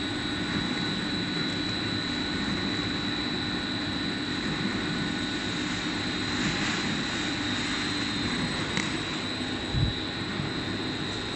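KJG sewage-sludge dryer running: a steady rushing machine noise with a thin high whine held over it. A single short low thump near the end.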